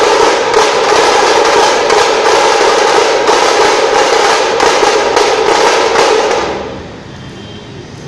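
Dhol-tasha drumming: a dense run of rapid, sharp drum strokes that stops about six and a half seconds in, leaving a much quieter background.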